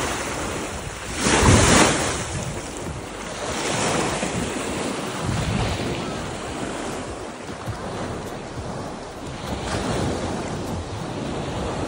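Sea washing in the shallows with wind buffeting the microphone: a steady rushing noise that swells and falls several times, loudest about a second and a half in.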